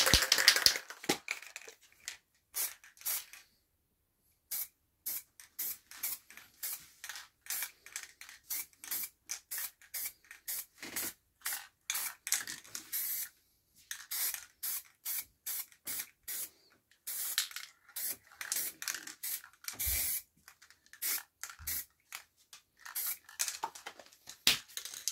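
Aerosol spray paint can hissing in many short sprays, each a fraction of a second, with brief pauses between.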